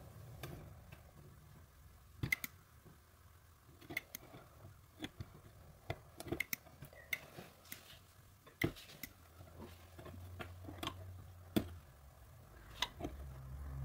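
Faint, irregular small clicks and taps as the hot tip of a hand-held plastic welding gun is worked against the cracked plastic of a snowmobile cab, melting plastic into the crack.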